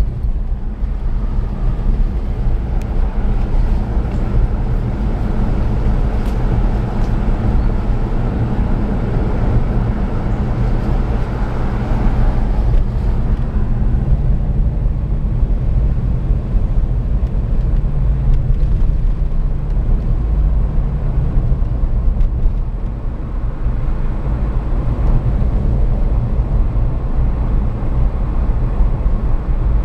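Car driving along a road, its engine and tyre noise heard from inside the cabin as a steady low rumble.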